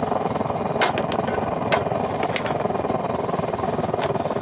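Portable pellet stove burning hard, its fire giving a steady rushing roar, with a couple of sharp crackles about one and two seconds in.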